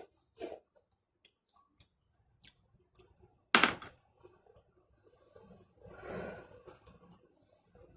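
Scattered small clicks and taps of objects being handled, with one sharp knock about three and a half seconds in and a stretch of soft rustling near the end.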